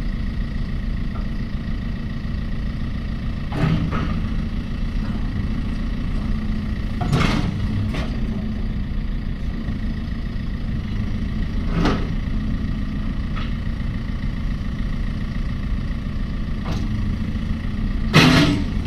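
The diesel engine of a JCB 3CX loader backhoe running steadily, with several sharp metallic knocks and clunks at irregular intervals, the loudest near the end.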